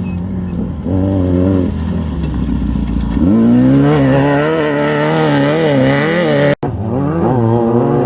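Off-road race vehicle engine running, its pitch climbing about three seconds in and then rising and falling as the throttle is worked. A sudden cut near the end switches to another engine running.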